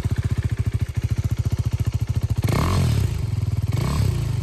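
Husqvarna Vitpilen 401's single-cylinder engine idling with a fast, even thump. About two and a half seconds in it is revved in two quick throttle blips, the pitch rising and falling each time.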